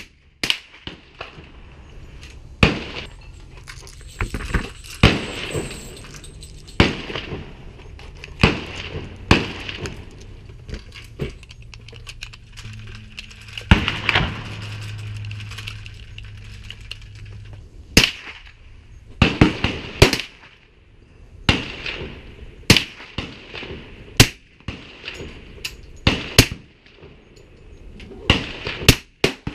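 Suppressed 1911 pistol with an Advanced Armament suppressor fired repeatedly, sharp cracks at irregular intervals, sometimes several within a second, mixed with gunfire from neighbouring shooters on the range.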